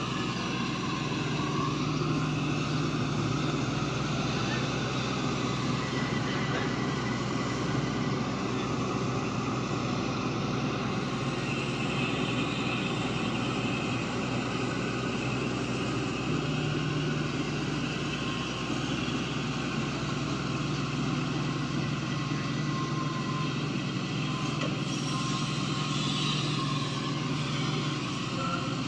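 Shantui crawler excavator's diesel engine running steadily under load while it digs mud, with a whine that bends in pitch near the start and again near the end as the arm and bucket move.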